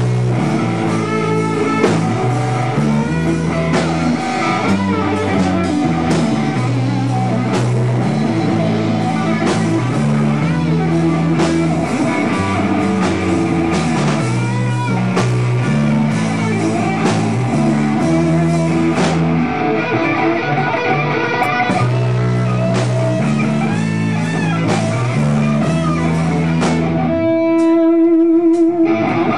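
Live rock band playing an instrumental passage: electric guitars over a drum kit, the guitars repeating a riff. Near the end the drums and low end drop out for about two seconds, leaving one held guitar note, before the band crashes back in.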